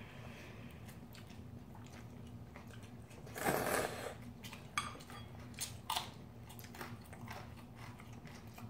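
Eating noises: Shin Ramyun instant noodles slurped and chewed at the table, with one loud slurp about three and a half seconds in, followed by a few sharp clicks of chopsticks against bowls. A steady low hum sits under it.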